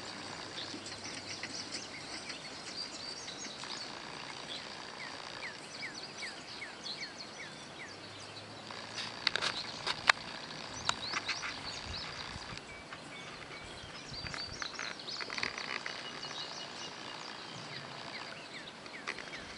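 Hay-field ambience with birds chirping, including a run of about eight short falling notes, over a steady high hum. A few sharp clicks sound around the middle.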